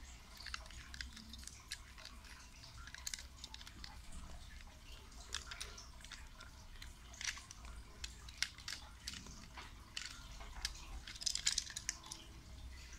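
Irregular small clicks, crinkles and rustles of hands working a plastic toy train loose from its plastic packaging fastenings.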